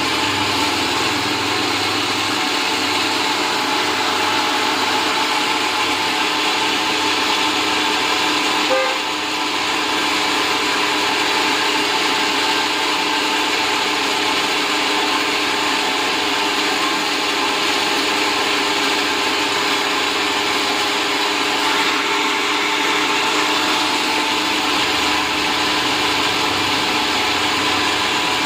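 Electric fan running steadily: an even motor hum with several steady tones over a rushing hiss. A brief knock about nine seconds in.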